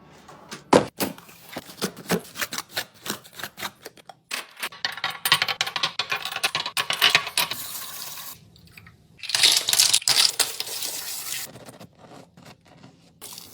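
Kitchen containers and packaging handled during a restock: a run of sharp clicks and taps, then two stretches of dense clattering of small hard items, and a few more clicks near the end.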